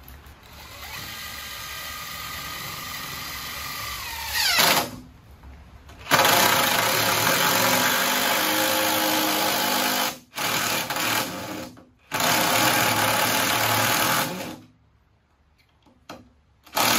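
Cordless impact driver driving screws through a wooden block into a joist in several runs: a steadier spin of about four seconds that winds down in pitch, then a loud impacting run of about four seconds, a short one, another of about three seconds, and a last one starting near the end.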